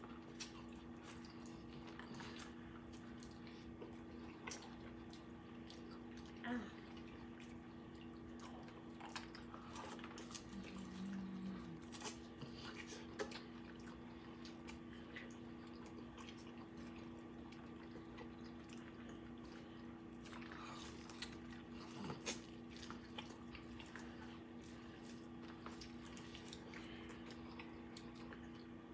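Faint eating sounds: people biting and chewing corn on the cob, with scattered small wet clicks and smacks, over a steady low electrical hum.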